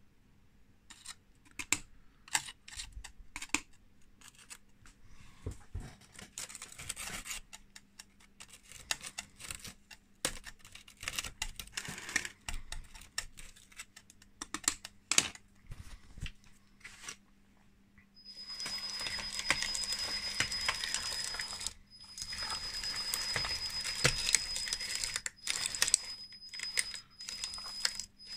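Screwdriver scraping and clicking against the plastic links of a 3D-printed RC dozer track chain, picking debris out of it. Later come two runs of a few seconds each of the model's electric track drive, a steady noise with a high whine, on a track where something seems to be locked up inside.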